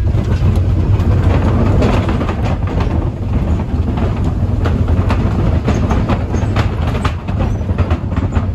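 A vehicle running over a rough road: a steady low rumble with frequent rattles and knocks.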